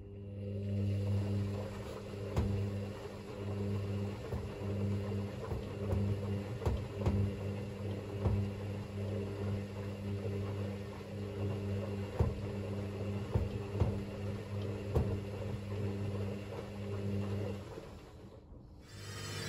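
Hoover VisionTech washing machine running, its drum motor giving a steady hum that swells and eases as the drum turns, with scattered sharp knocks. The motor stops near the end.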